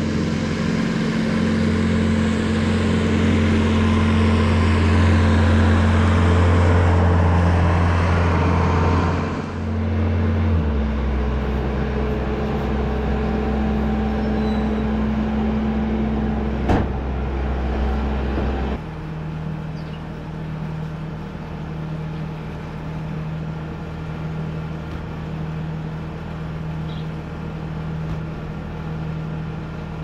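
Bobcat skid-steer loader engine running, loud and steady while carrying a big square hay bale, its note shifting about ten seconds in. A single sharp click comes just past halfway, and soon after the engine drops to a quieter, lower steady note as the bale is set into the feeder.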